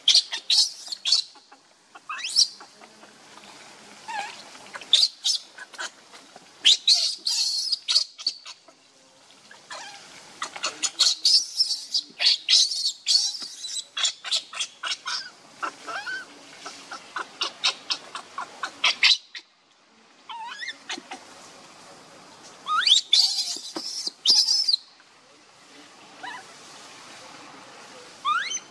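Infant macaque screaming and squealing in rapid high-pitched series, over and over: the distress cries of a hungry baby being refused milk by its mother.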